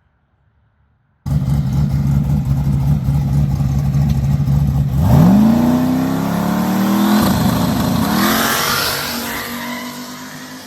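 A drag car's engine held at a steady rev on the starting line, then launching: the pitch climbs, drops once at a gear change, climbs again, and fades as the car pulls away down the track.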